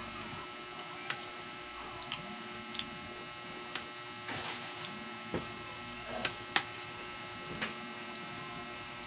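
Eating sounds: a wooden spoon clicking against a plate and mouth noises, about eight sharp, irregular clicks, the loudest about six and a half seconds in, over a steady electrical hum.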